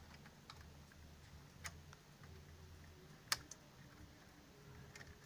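Faint clicks and taps of fingers working a laptop's Wi-Fi card and its antenna wires into the slot: a few small clicks, with one sharper click a little over three seconds in.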